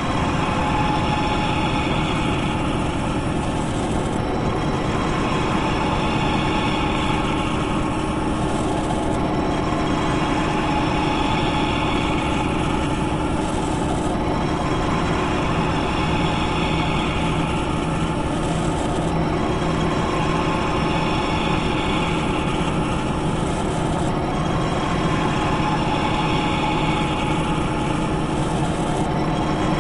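Machinery running steadily: a continuous mechanical hum with a few steady tones, and a higher whirr that swells and fades about every five seconds in a regular cycle.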